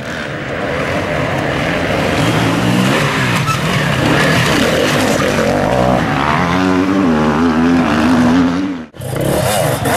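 Enduro motorcycle engines revving hard on a dirt climb, the pitch rising and falling with the throttle and loudest near the end. Shortly before the end the sound cuts off abruptly and another bike's engine comes in.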